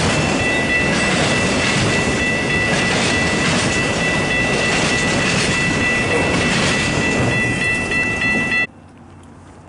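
Freight train of autorack cars rolling past, a steady rumble and rattle of wheels on the rails with a steady high ringing tone above it. The sound cuts off abruptly near the end, leaving only a faint outdoor hush.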